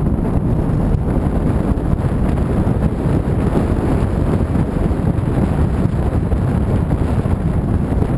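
Steady wind rushing over the microphone of a camera moving along at road speed, a low, even rush that covers any engine sound.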